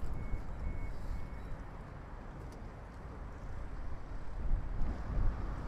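Low, uneven outdoor rumble that swells louder near the end, with a few faint short high beeps in the first second or so.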